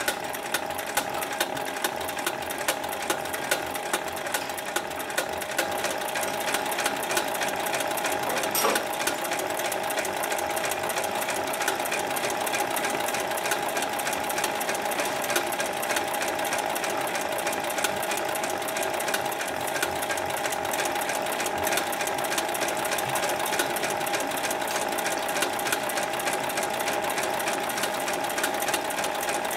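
Hightex industrial zig-zag sewing machine starting up and running steadily, its needle stitching a rope onto netting in a fast, even clatter.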